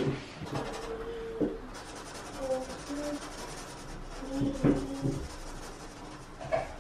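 Felt-tip marker pen rubbing back and forth along the chipped laminate edge of a shelf unit, touching up the chips. Faint voices are heard in the background.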